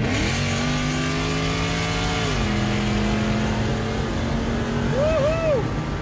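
Mercedes E55 AMG wagon's supercharged V8 accelerating hard, heard from inside the cabin; its pitch steps down about two seconds in as it shifts up, then holds steady under load.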